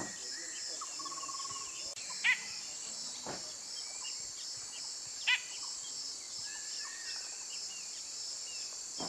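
White-throated bulbul giving two loud harsh calls about three seconds apart, with scattered softer bird notes, over a steady pulsing chorus of insects.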